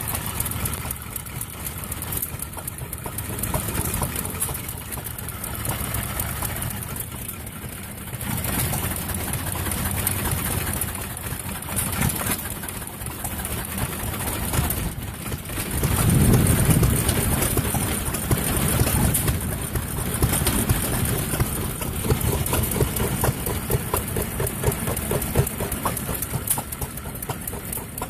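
Antique hit-and-miss stationary gas engines running, a dense mix of irregular exhaust pops and knocks. A louder low rumble swells about halfway through.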